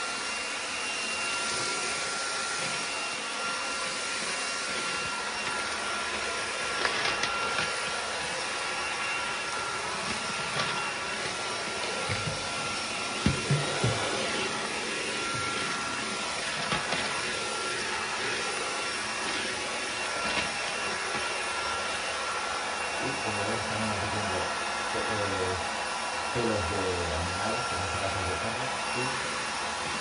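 BuTure CR20 cordless 170 W stick vacuum running steadily with a motor whine, its floor nozzle pushed over tile and sucking up scattered debris. A few short clicks come about seven and thirteen seconds in.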